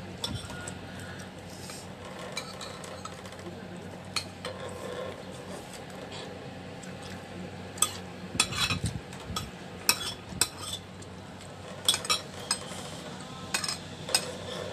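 A metal spoon clinking and scraping against a plate: scattered sharp clicks, coming thicker in the second half.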